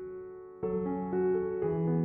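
Gentle background piano music: held notes fading away, with a new chord struck about half a second in and another near the end.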